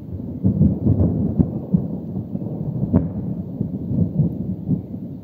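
Thunder rumbling: a low, crackling roll that swells in the first second, stays strong for about three seconds and then fades.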